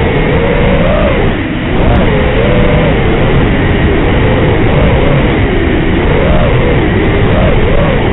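FPV racing quadcopter's four Racerstar 2205 brushless motors whining, the pitch rising and falling constantly with throttle, over a heavy hiss. The sound dips briefly about a second and a half in, as the throttle drops.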